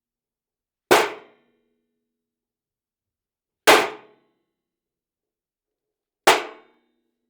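Three separate sharp bangs, each with a short ringing tail, spaced about two and a half to three seconds apart with silence between.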